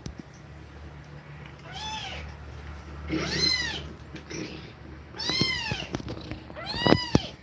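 Cat meowing four times, about a second and a half apart. Each call rises and falls in pitch, and the last is the loudest.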